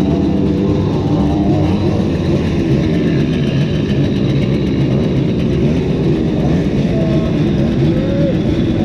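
Several Simson single-cylinder two-stroke moped engines running together, their pitch wavering up and down as the throttles change.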